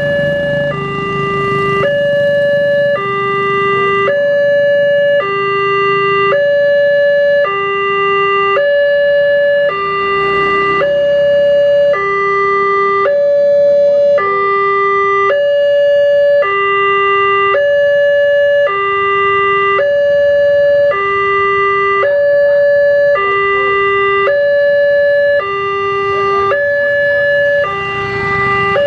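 Railway level-crossing warning alarm sounding a steady two-tone hi-lo signal, switching between a higher and a lower tone about once a second. It warns that a train is approaching and the barrier is down.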